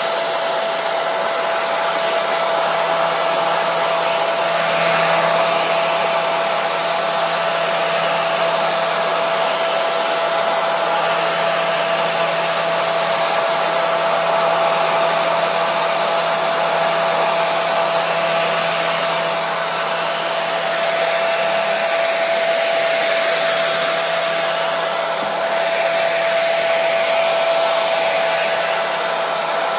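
Hair dryer running steadily: a constant rush of air with a steady motor whine, unchanging throughout.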